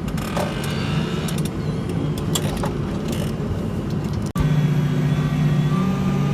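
Tractor engine running, with scattered clicks and rattles over it. About four seconds in, the sound breaks off abruptly and a louder, steadier engine hum takes over.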